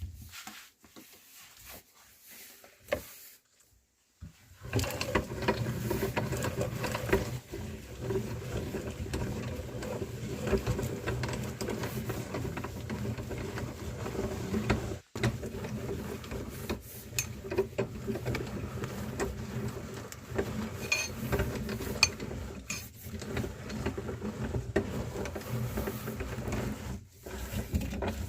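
Electric meat grinder starting up about four seconds in and then running steadily with a motor hum, grinding cream rolls, with small clicks and crackles over the hum. The sound drops out for an instant about halfway through.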